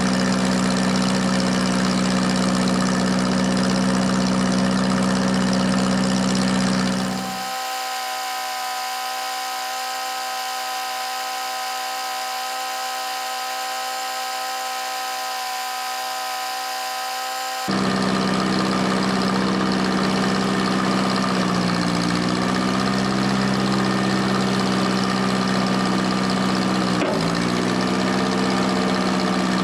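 Case CK530 tractor engine running at a steady idle. About seven seconds in, its deep low end drops out and the sound is quieter for about ten seconds. It then returns, and the engine note dips briefly twice in the later part as the loader hydraulics take load while the bucket is worked.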